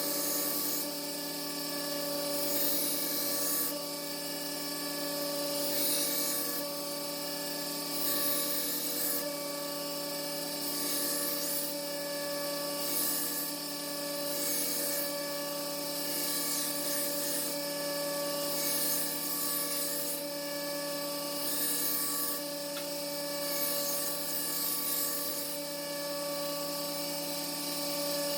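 Belt grinder running steadily with a coarse 50-grit belt as a knife blade is ground in repeated passes. A high grinding hiss swells and fades every second or two over the steady motor and belt hum.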